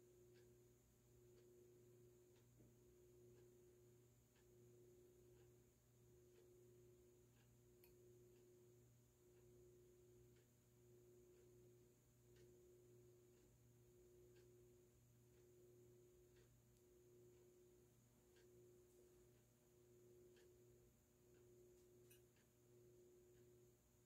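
Faint hum of a FASCO Heat-Cycler ceiling fan motor running at a medium-low setting on its solid-state speed control. The hum is a steady tone that pulses about once a second, with a few faint ticks.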